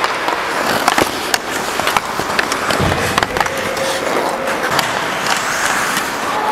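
Ice hockey skates scraping and carving on the ice close up, with sharp clacks of sticks and puck. A heavy thump comes a little under three seconds in.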